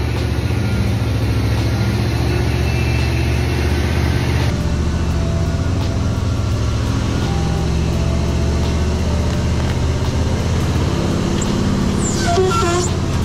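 Ford Bronco's engine running at a steady low idle as the truck creeps forward on flattened tires, with a brief high squeak near the end.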